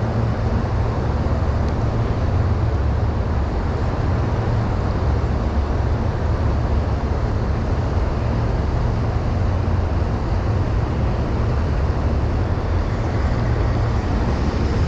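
Steady rushing of fast, shallow river water running over rocks, with a deep constant rumble underneath.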